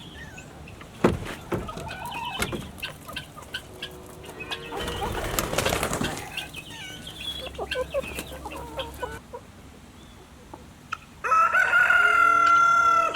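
Chickens clucking and stirring, with a flurry of wing flapping about five seconds in. Near the end a rooster crows loudly for about two seconds.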